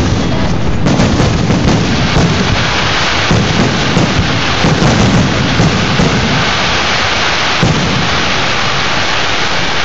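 Fireworks display: aerial shells bursting in quick succession, their booms merging into a loud, continuous rumble and crackle.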